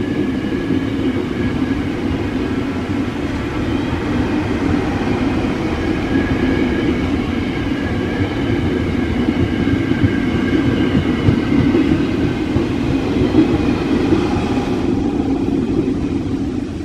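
Electric commuter train passing close by: a steady loud rumble of steel wheels on the rails, with a faint high whine over it.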